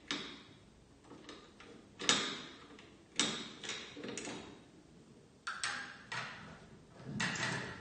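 Light clicks and knocks of glass bottles, weights and pans being handled on a pharmacy plate balance while a container is tared. There are about seven short, sharp knocks at irregular intervals, each dying away quickly, with duller handling noise near the end.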